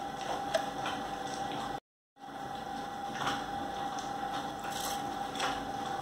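Grated coconut and soaked rice tipped into a steel mixer-grinder jar, giving soft rustles and a few light taps over a steady background hum with a faint constant tone. The sound drops out briefly about two seconds in.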